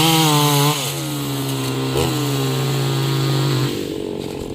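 Stihl MS 381 two-stroke chainsaw engine running at high revs. Its pitch sags about a second in and drops again, a little quieter, near the end.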